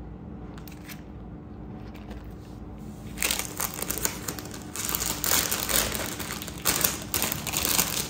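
Plastic jewellery pouch crinkling and rustling as it is handled, in irregular bursts that start about three seconds in.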